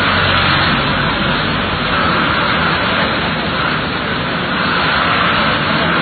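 Bus engine and road noise heard from inside the cab: a steady low engine hum under a continuous hiss, without any change.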